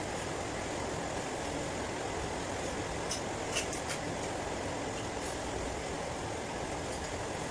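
Steady low room noise with a few light clinks of metal spoons against plates and bowls as people eat, about three to four seconds in.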